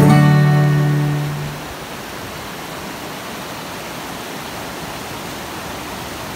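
Acoustic guitar music ends on a held chord that fades out in the first second and a half. It gives way to the steady rush of a small mountain stream running over rocks.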